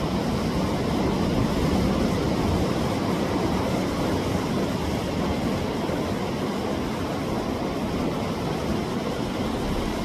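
Sea waves surging against a rocky shore: a steady low wash of surf with no breaks, swelling slightly about one to three seconds in.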